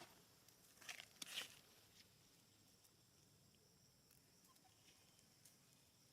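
Near silence, with a few brief faint rustles about a second in.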